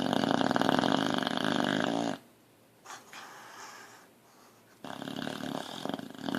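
Boxer dog snoring in deep sleep: one long loud snore of about two seconds, a softer breath, then a second loud snore from about five seconds in.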